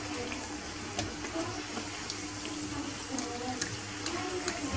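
Folded msemen-style dough squares frying in hot oil in a frying pan: a steady sizzling hiss, with a few faint clicks.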